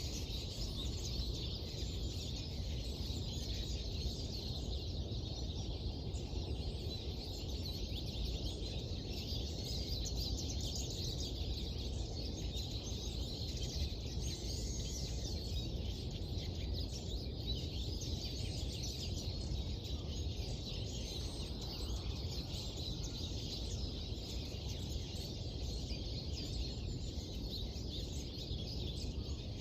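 Many small birds chirping and singing continuously, many overlapping short chirps, over a steady low rumble.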